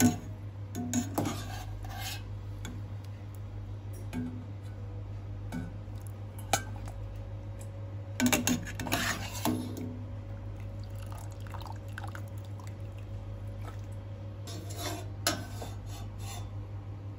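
Metal skimmer and ladle clinking and scraping against a saucepan as fruit is lifted out of mulled wine. The clinks come in clusters near the start, in the middle and near the end, over a steady low hum.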